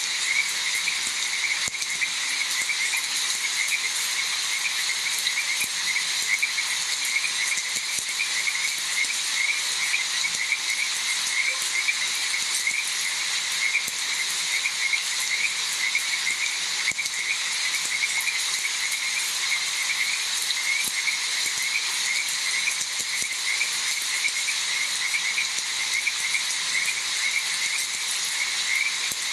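A chorus of frogs calling over and over in a steady pulsing rhythm, over the even hiss and patter of falling rain.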